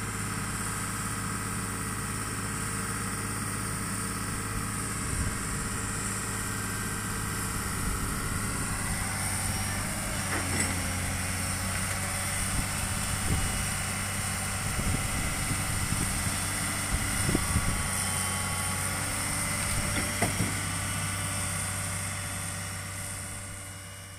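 Heavy diesel engine idling steadily, with scattered knocks and clanks from about ten seconds in, fading out near the end.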